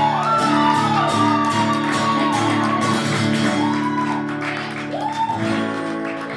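Live acoustic music: an acoustic guitar strumming sustained chords while a woman's voice holds long, sliding notes. The sound eases off toward the end.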